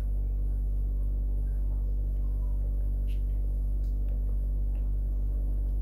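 Steady low hum made of several even tones, unchanging throughout, with a few faint ticks.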